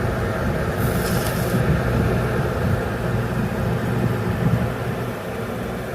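Summit ice maker's drain pump running steadily with a hum, pumping water out of its tank after its float switches were lifted; the sound eases slightly near the end.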